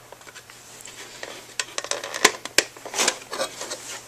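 Scattered clicks and taps of a Ford airbag diagnostic module's plastic housing and metal bracket being handled and pried apart by hand, as its snap tabs are pulled outward. The taps come sparsely at first, then more often from about one and a half seconds in.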